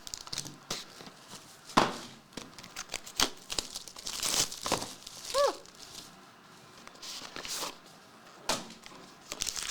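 Trading-card box packaging being opened by hand: irregular crinkling and tearing of wrapper with several sharper rips.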